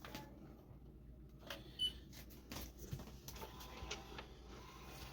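Faint scattered clicks and light knocks of hands handling parts, with one short high chirp a little under two seconds in.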